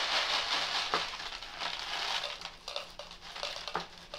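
Dry cat-food kibble rattling as it pours out of a large plastic water jug into a plastic bowl, loudest in the first couple of seconds and thinning out after, with the thin plastic of the jug crinkling as it is tilted.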